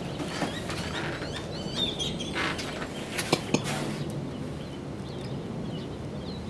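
Small birds chirping in short high calls, with two sharp knocks close together about three and a half seconds in.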